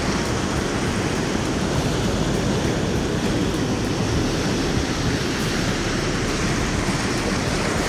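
Steady rush of ocean surf breaking and washing up the beach.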